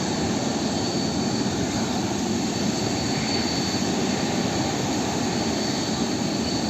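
Boeing 777 jet engines running at low taxi thrust: a steady rush with a faint high whine over it.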